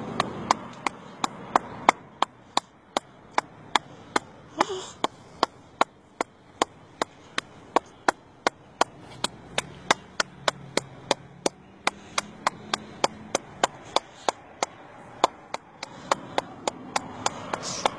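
Hand claps in a steady rhythm, about three a second, used to call fish to the surface so they can be caught.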